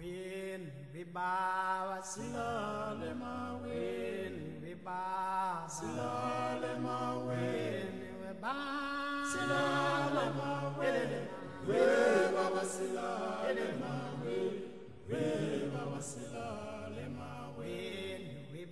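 Slow background vocal music: several voices singing long, held, chant-like notes with vibrato over low sustained notes.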